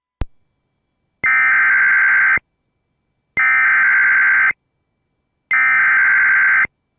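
Emergency Alert System SAME header: three identical bursts of screechy digital data tones, each a little over a second long and about a second apart, encoding the alert for a severe thunderstorm warning. A single sharp click comes just before them.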